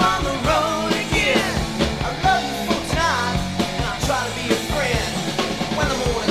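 Recorded music played from a vinyl record: a rock-style track with gliding melodic lines over a steady beat.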